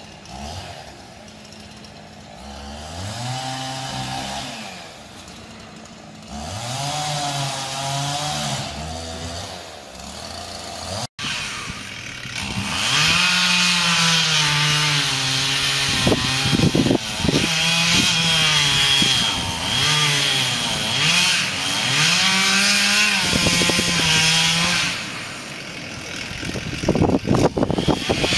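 Gas chainsaw revving and cutting into the trunk of a large tree, its engine pitch rising and falling as the chain loads up in the cut. It is quieter in the first part and much louder from about halfway, with sharp knocks near the end.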